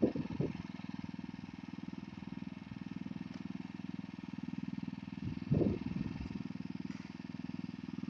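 Small engine of a rice transplanter running steadily with an even, rapid pulse, with a few brief louder bursts at the start and about five and a half seconds in.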